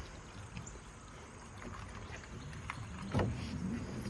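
Steady rush of river water, with a sharp knock about three seconds in.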